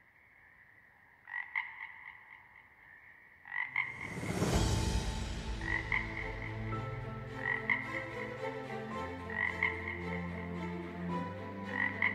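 Frogs croaking in a night ambience. About four seconds in, a swelling whoosh comes in, then a low, dark drone whose notes shift every second or two under the repeating croaks.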